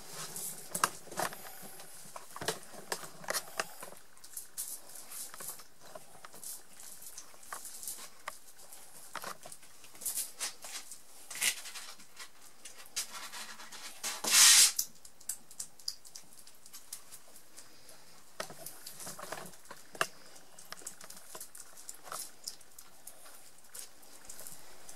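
Birman kittens' paws and claws scrabbling and tapping on a plush cat tub and the floor as they play: scattered light taps and scratches, with one louder noise lasting about half a second about halfway through.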